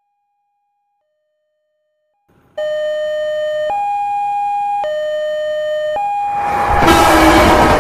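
Railway level-crossing warning alarm sounding in alternating high and low tones, each held about a second. It is faint at first and loud from about two and a half seconds in. From about six seconds in, the rising rush of an approaching train joins it.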